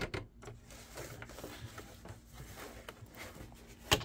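Soft rustling of the jersey fabric as it is shifted and turned under the sewing machine's presser foot, over a faint steady hum, with one sharp click near the end.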